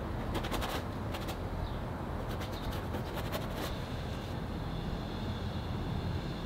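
Outdoor ambience: a steady low rumble with several runs of rapid clicks, about half a second in and again around two and a half to three and a half seconds in, and a faint high steady tone in the second half.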